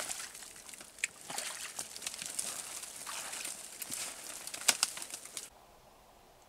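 Bare twigs and branches rustling and snapping as a person forces his way through a dense thicket, with a few sharp cracks, the loudest two just before the sound stops. It cuts off suddenly about five and a half seconds in.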